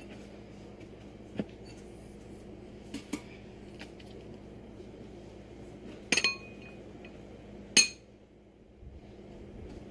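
A metal spoon clinking against a glass bowl: a few light clinks, then two louder ones toward the end that ring briefly. A steady low hum runs underneath.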